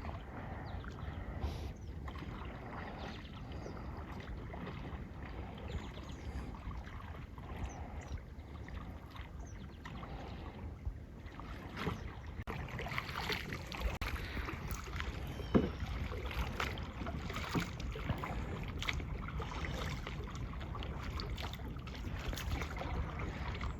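Water sloshing and splashing around a small boat, with wind rumbling on the microphone and scattered small knocks; the sharpest knock comes about fifteen and a half seconds in.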